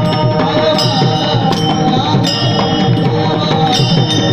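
Devotional bhajan music: a steady drum rhythm and metallic hand-cymbal strikes over sustained held tones.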